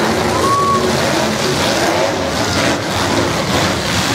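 Engines of several demolition derby cars running together in a loud, steady din, with some revving.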